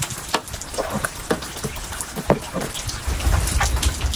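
Wooden spoon stirring shredded chicken in salsa verde in a steel pot: irregular wet squelches and taps, several a second, with a low rumble rising near the end.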